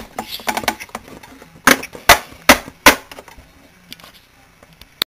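Hard plastic Littlest Pet Shop figurines knocking as they are moved by hand: four sharp taps about 0.4 seconds apart near the middle, with light handling rustle.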